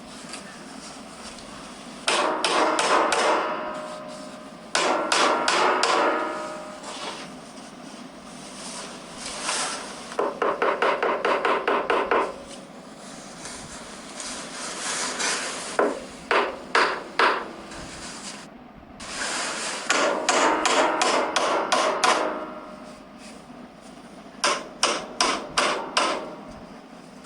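Hammer striking and crushing waste pencils in repeated runs of quick blows, several a second, with short pauses between the runs.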